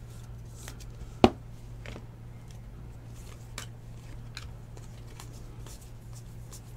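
Baseball trading cards being slid and flipped through by hand: a run of soft clicks and rustles, with one sharp tap about a second in, over a steady low hum.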